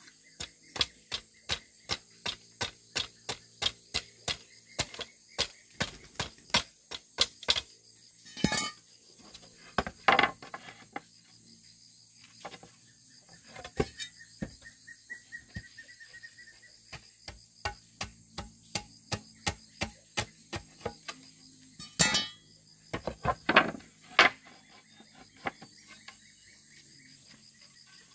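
A hand tool knocking on wood in quick, even strokes, about three a second, for the first eight seconds, then irregular, heavier blows with pauses. Crickets or other insects chirr steadily throughout.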